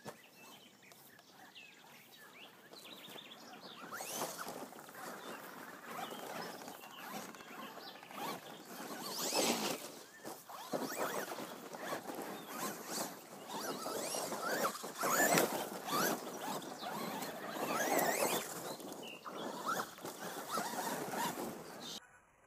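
Traxxas Rustler RC truck driving and jumping on dirt: its motor whines up and down with the throttle over the crunch and patter of its tyres on sand, louder each time it passes close.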